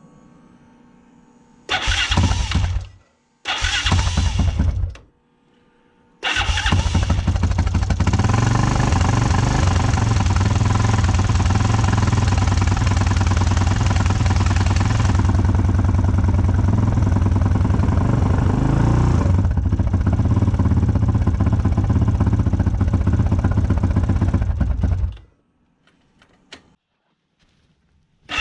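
Yamaha Raptor 660 quad's single-cylinder four-stroke engine being started: two short tries, then it catches and runs for about twenty seconds. Near the end it is blipped briefly up in revs, then cuts off.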